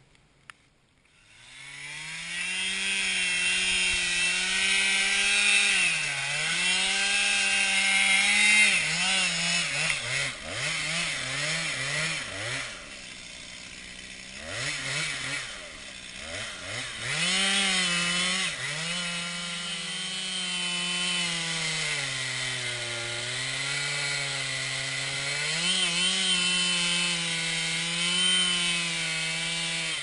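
Two-stroke chainsaw revving up and cutting into an oak trunk, its engine note dipping and recovering as it labours in the cut. About halfway through it eases off, with a few short revs, before cutting steadily again. The sound drops away at the end.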